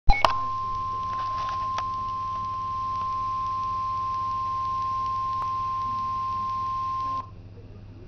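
NOAA Weather Radio warning alarm tone, a single steady 1050 Hz tone, played through a Midland WR-100 weather radio's speaker. It signals that a warning-level alert message follows. A brief loud burst comes at the very start, and the tone cuts off suddenly about seven seconds in.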